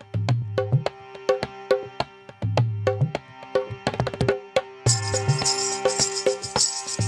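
Background music with a steady percussive beat and bass notes; a bright shaker-like layer joins about five seconds in.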